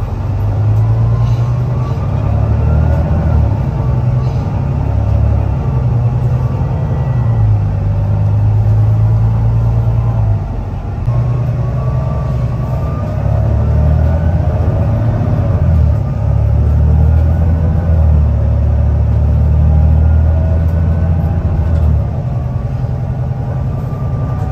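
Volvo B9TL double-decker bus's diesel engine and driveline heard from inside the lower deck under hard acceleration: a deep steady rumble with whines that climb in pitch and drop back, easing off briefly about ten seconds in and again near the end.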